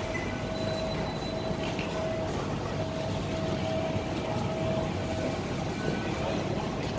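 Rail station concourse ambience: a steady low rumble with a faint steady whine that fades in and out.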